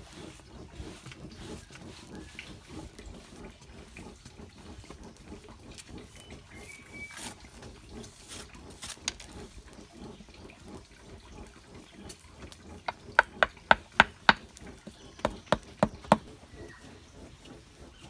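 Hands rubbing and patting damp sand in a round sand-casting mould, a soft continuous scratchy rustle. About two-thirds of the way in comes a quick run of about nine sharp taps.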